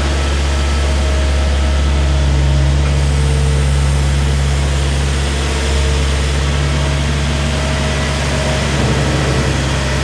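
New Holland LS160 skid-steer loader's engine running steadily with a low, even drone.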